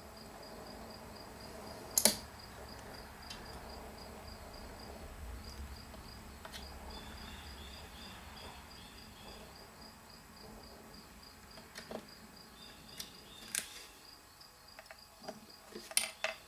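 A cricket chirping steadily in quick, even, high-pitched pulses, with one sharp knock about two seconds in and a few lighter clicks of things being handled later on.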